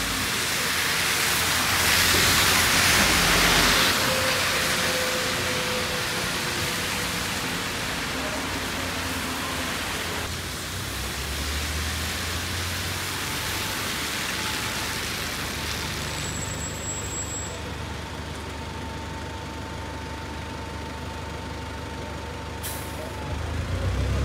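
Buses and other road traffic in a city street: engines running with a steady low hum, and a louder rush as a vehicle passes about two to four seconds in.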